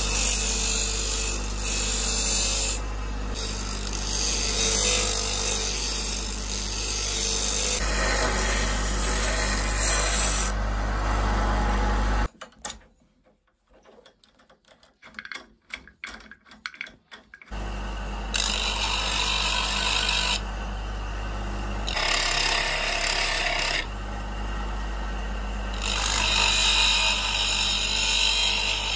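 Bench-mounted abrasive disc grinding a high-carbon steel knife blank cut from a band saw blade, a steady, loud grinding hiss. About twelve seconds in it stops for some five seconds, leaving only a few faint clicks while a wrench works on the spindle, then the grinding starts again.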